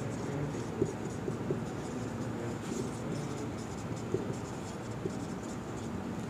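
Marker pen writing on a whiteboard: light scratchy strokes, with a few small clicks as the tip meets the board.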